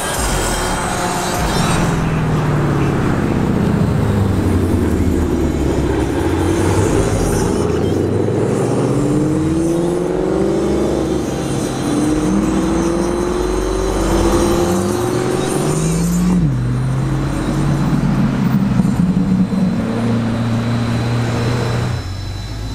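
Car engines running as cars drive past, the engine note rising and falling as they accelerate and ease off, with a sudden drop in pitch about two-thirds of the way through.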